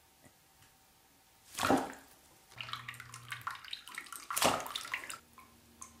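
African grey parrot splashing in shallow water in a bathroom sink. There is a loud splash about a second and a half in, then a run of smaller irregular splashes, with a second loud splash about four and a half seconds in.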